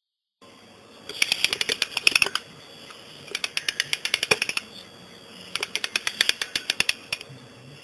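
Typewriter keys striking in three quick bursts of clicks, over a faint steady hiss.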